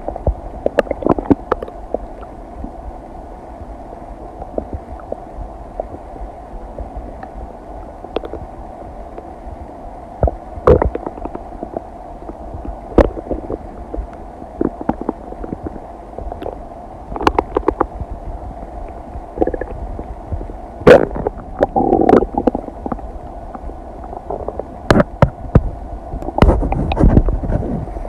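Human stomach and intestines digesting: scattered pops, clicks and gurgles over a steady low hum, with a longer gurgle about three-quarters of the way through.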